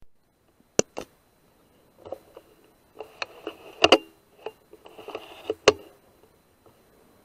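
Sharp clicks and knocks in irregular clusters, with short spells of rustling between them. The loudest knocks come about four seconds in and again near the end.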